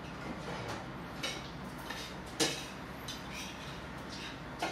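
Light clinks of spoons against plates and bowls at a meal table over quiet room noise, with a sharper clink about two and a half seconds in.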